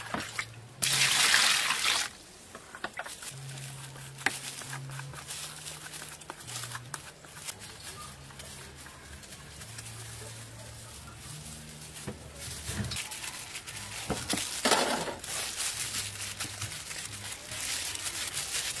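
Water splashing and trickling in a basin while a peeled fruit is washed. There is a louder rush of pouring or splashing water about a second in and again later, with small knife scrapes and cuts through firm fruit flesh between.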